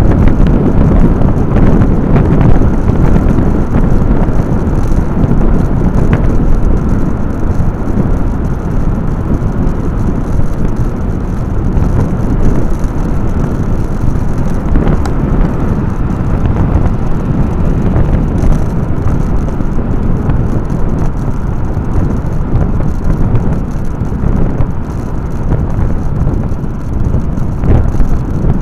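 Steady, loud rush of wind and road noise on a camera mounted on a moving vehicle.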